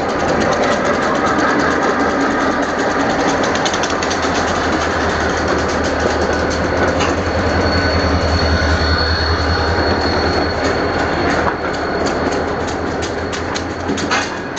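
Diesel locomotives creeping past at close range, their engines running with a deep drone that swells around the middle. A thin high whine sounds for a few seconds midway, and the wheels click over the rail joints, more marked near the end.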